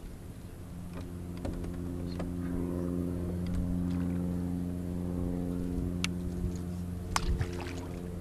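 Boat motor running steadily, its hum swelling a little after about a second and easing off toward the end, with a few sharp clicks near the end.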